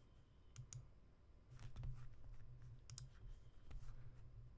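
Faint, scattered clicking at a computer: a handful of sharp clicks, a few at a time, over a steady low hum.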